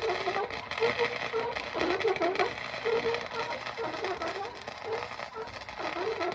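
Wire-feed (MIG) welder arc crackling and sputtering steadily as a weld bead is laid.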